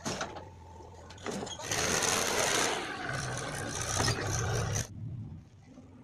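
Tractor's diesel engine running hard under a heavy load, its front wheels lifted off the ground. It is quieter for the first second or so, then loud from about two seconds in, and it drops off abruptly near the end.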